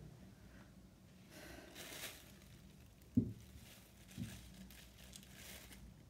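Thin plastic sheet crinkling and rustling as a clay slab is laid over it and pressed down by hand, with two soft thumps about a second apart in the middle.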